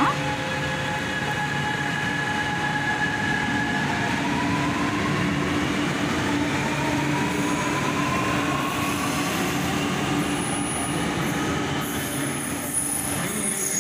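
Chennai Metro train pulling out of the station, its electric whine rising in pitch as it gathers speed over a steady rumble of wheels on rail.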